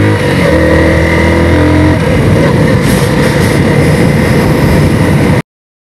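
Sport motorcycle engine running steadily while riding, with a brief break in the engine note just after the start. About two seconds in the steady note gives way to a rushing noise as the bike gathers speed. The sound cuts off abruptly near the end.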